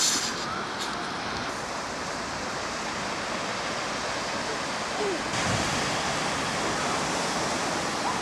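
Steady rush of sea surf and wind, which turns brighter about five seconds in.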